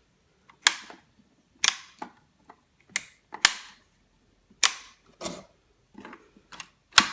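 Sharp metallic clicks and clacks, about eight at irregular intervals, from handling a WE AK74UN gas blowback airsoft rifle.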